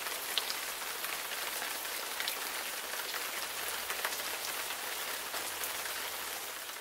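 Steady rain falling on hard surfaces: a dense, even hiss with scattered drop ticks, beginning to fade out at the very end.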